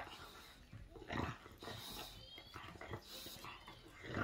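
English bulldog gnawing on a chew bone, the chewing noises coming in short, irregular bouts.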